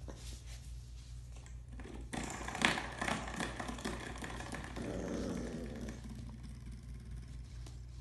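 A puppy growling in play, with scratchy clicking and clatter from about two seconds in and a short growl about five seconds in.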